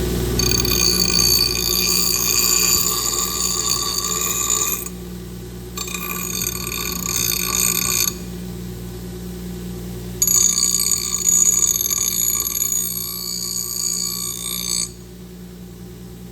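Electric grinder running steadily and grinding steel in three passes, each contact giving a high whine that starts and stops abruptly, likely taking paint off the metal before welding.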